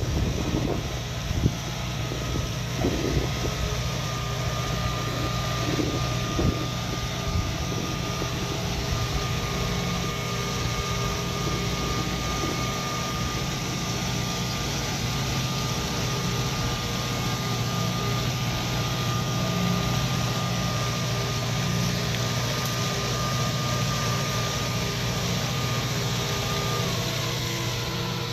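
Valtra C120 tractor's diesel engine running steadily while the Matti slurry tanker spreads, with a steady high whine and the even hiss of slurry being sprayed from the rear spreader.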